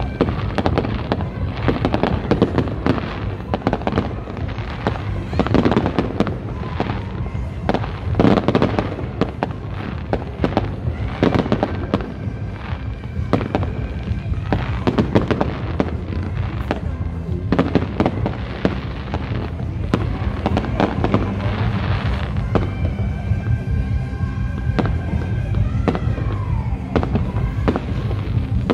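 Fireworks display: a dense, continuous run of bangs and crackling bursts, with near the end some steady whistle-like tones and a falling glide.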